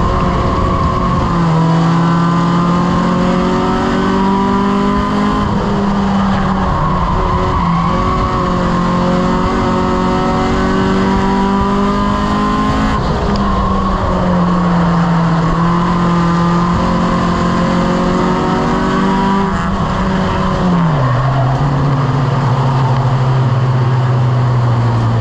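Four-cylinder mini stock race car engine heard from inside the cockpit under racing load. Its note climbs slowly along the straights and falls away each time the driver lifts, several times over. Near the end it settles to a lower, steady note as the car eases off after the finish.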